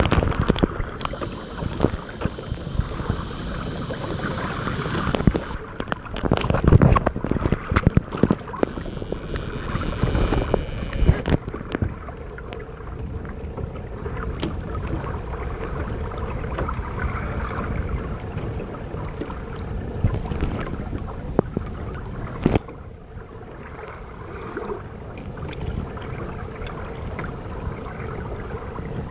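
A Hobie Tandem Island sailing kayak under way: water rushing and splashing along the hull, with wind buffeting the microphone. It is gustier in the first ten seconds or so, then steadier, with a few sharp knocks.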